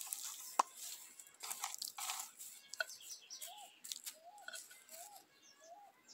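Potting soil crunching and rustling in short strokes as hands press it down around a freshly repotted seedling in a concrete pot, with one sharp click about half a second in. From about halfway a bird calls over and over, short notes a little under a second apart.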